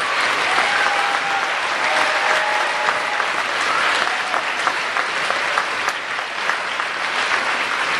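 Audience applauding: steady, dense hand clapping from a crowd of people.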